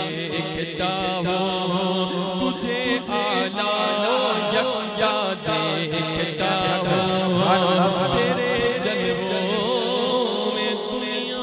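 A man singing a naat into a microphone: held vocal notes decorated with quick wavering ornaments, in one unbroken line.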